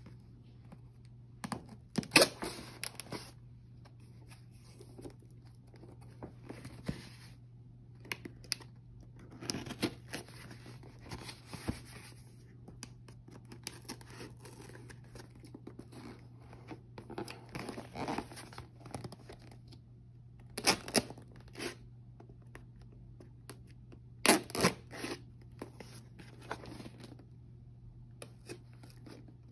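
Clear plastic packaging being slit with a knife and torn and peeled off by hand: irregular short crinkly tearing rasps with pauses between them, the loudest rips about two seconds in and twice in the last third. A low steady hum runs underneath.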